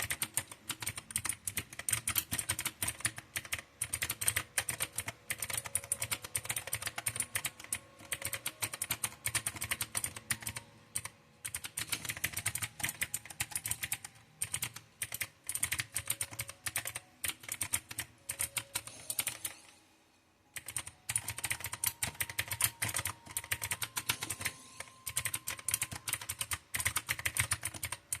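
Fast, continuous typing on a mechanical keyboard with clicky blue switches: a dense run of sharp key clicks, with a brief pause about twenty seconds in.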